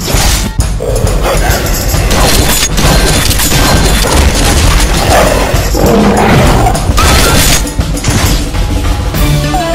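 Loud action-movie rock soundtrack mixed with animated battle sound effects: heavy booms and impacts from a scythe-rifle fight and the snarling of wolf-like monsters.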